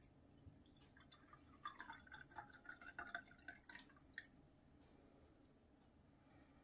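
Faint trickling and dripping as milk mixed with yogurt starter is poured from a metal ladle into a glass jar, running from about one second in to about four seconds in.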